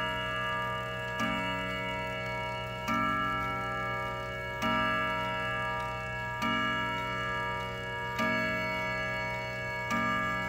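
Howard Miller triple-chime wall clock striking the hour on its chime rods, six evenly spaced strokes about 1.7 s apart, each ringing on into the next. This is the twelve o'clock strike.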